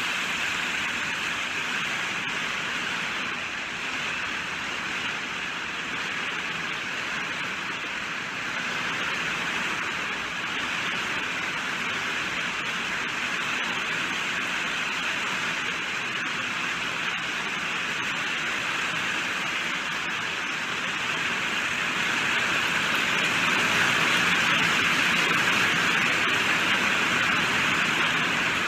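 Steady rainfall, an even hiss of many drops, growing a little louder about three-quarters of the way through.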